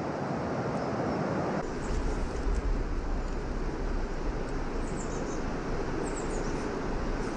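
Steady rushing outdoor noise with a low rumble of wind on the microphone, which grows stronger about two seconds in. A few faint, short, high bird chirps sound around five to six seconds in.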